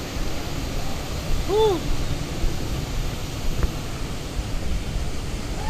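Wind buffeting the microphone of a handheld action camera: a steady low rumble. A person's voice makes one short sound that rises and falls in pitch about a second and a half in.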